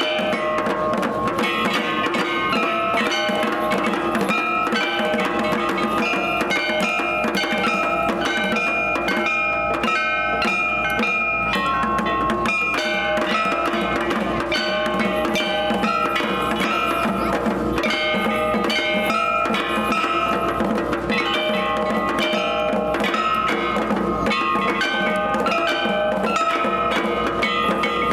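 Shishimai lion-dance festival music: drums and metal percussion struck in a steady driving rhythm under a high melody of held notes that step from pitch to pitch.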